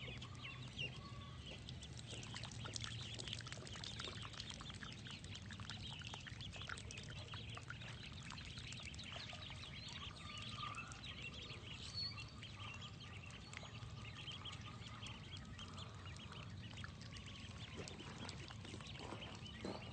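A flock of ducklings peeping: many faint, high, short chirps overlapping without a break.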